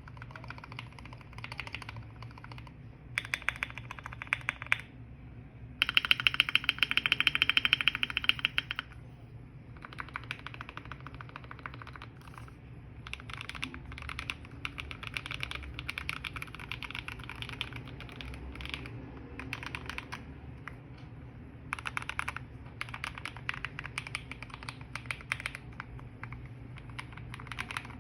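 Typing on a GMMK Pro mechanical keyboard with lubed Red Wine switches and Akko ASA keycaps, tape-modded and fitted with the ToxicLab sound package: runs of quick keystrokes with short pauses between them, loudest in a fast run about six to nine seconds in.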